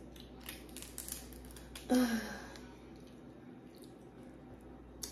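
Close-miked eating of seafood: a scatter of small clicks and crunches as shell is cracked and food chewed. About two seconds in, a short hummed 'mm' from the eater, falling in pitch.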